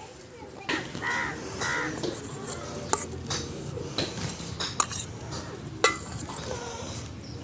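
Metal utensils clinking against dishes, a handful of separate sharp clinks, as the food is served and tasted. A crow caws a couple of times about a second in.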